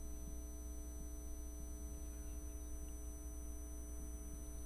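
Steady low electrical hum with faint higher tones above it, unchanging throughout: mains hum in the recording.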